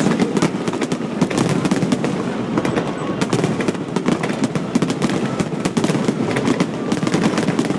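Fireworks display going off in rapid succession: a dense, continuous crackle of bangs and pops, many per second, with no pause.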